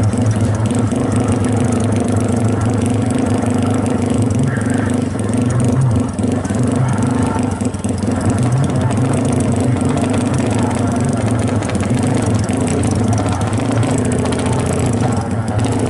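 Yamaha Jupiter MX single-cylinder four-stroke engine, bored up to 321 cc for drag racing, running steadily on a standing bike, its pitch wavering slightly now and then.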